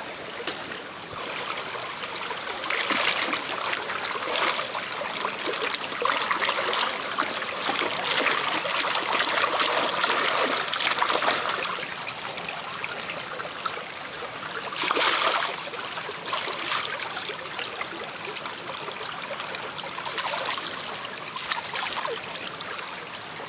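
Shallow stream running over rocks, with splashing surges every few seconds as bottle gourds are dipped and rubbed clean of mud in the water.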